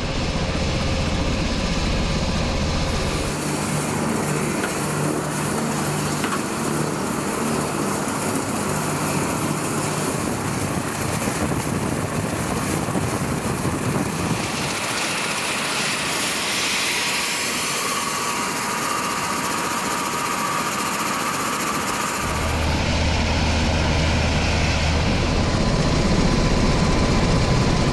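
Bell UH-1Y Venom helicopter running on the ground, a steady din of turbine and rotor noise. The sound shifts abruptly in tone a few times, about 3, 14 and 22 seconds in.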